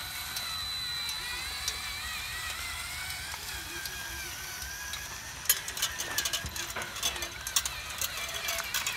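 Small electric motor and gearbox of a homemade RC truck whining, the pitch wavering up and down as it drives. Sharp clicking and rattling joins in from about five and a half seconds in.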